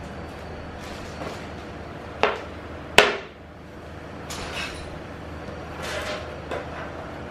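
Flat-pack cabinet panels being lifted, shifted and set down on cardboard: two sharp knocks a little past two and three seconds in, the second the loudest, then a few lighter clatters.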